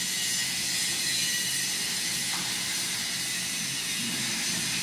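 Steady hiss of workshop background noise with a low machine hum underneath.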